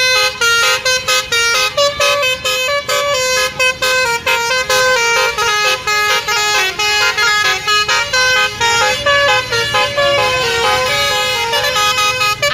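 Bus basuri horn, a multi-tone musical air horn ('telolet'), playing a fast melody of short notes stepping up and down, with brief breaks between phrases.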